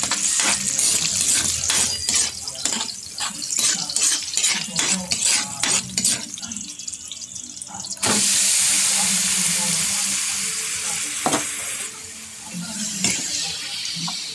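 A spatula scrapes and taps against a wok as sliced onion and garlic fry in oil with a light sizzle. About eight seconds in, soy-marinated pork cubes go into the hot oil with a sudden loud sizzle that fades over the next few seconds.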